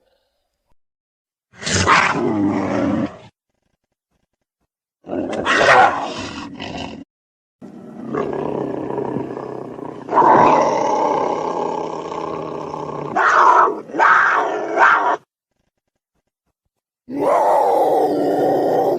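Velociraptor sound effects: four separate dinosaur screeches and roars with dead silence between them. The third call is long, about seven seconds, and ends in two sharp shrieks.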